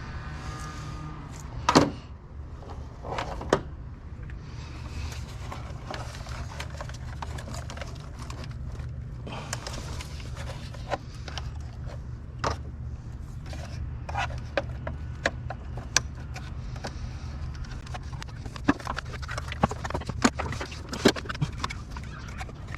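Scattered clicks and knocks of car parts being handled and worked loose, the loudest about two and three and a half seconds in and a quick run of them near the end, over a steady low hum.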